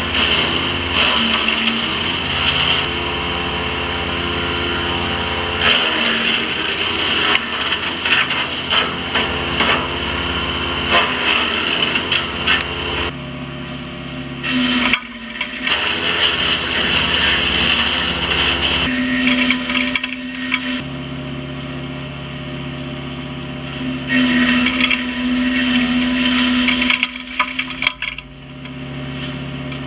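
Small 15 hp wood chipper running while oak is fed through and chipped, with crackling and splintering of the wood over the steady engine note. The engine note shifts several times during chipping.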